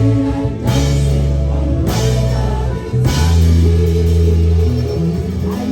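Live church band playing without vocals: a heavy bass line under guitar and drum kit, with three cymbal crashes in the first half.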